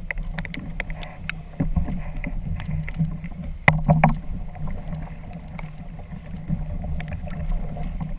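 Choppy water sloshing and slapping against the hull and outriggers of a tandem trimaran kayak, with a steady low rumble and scattered knocks and clicks. One sharper knock, a little under four seconds in, is the loudest.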